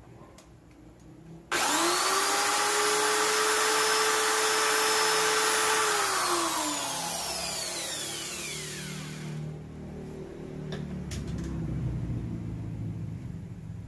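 Cordless drill motor starting abruptly and running at a steady high whine for about four seconds, then winding down with falling pitch over about three seconds. A few light clicks follow near the end.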